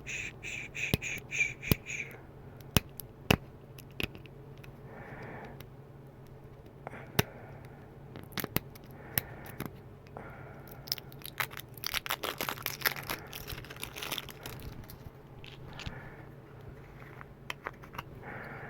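Packaging of a blush being handled and opened: a run of short high squeaks and several sharp clicks in the first few seconds, then a dense stretch of crinkling and rustling about eight seconds in that lasts some seven seconds.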